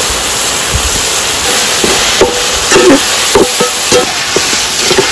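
Tomatoes, onions and green chillies sizzling in hot oil in a metal pan, stirred with a perforated metal spatula that scrapes and knocks against the pan from about two seconds in.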